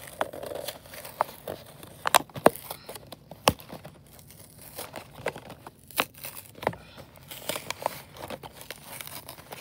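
Blister packaging of a diecast toy car being torn open by hand: the cardboard backing card and clear plastic shell crinkle and tear, with irregular sharp cracks and clicks.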